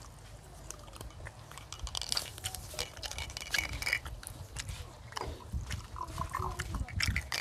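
A person chewing and crunching food close to a clip-on microphone, with many small, scattered clicks.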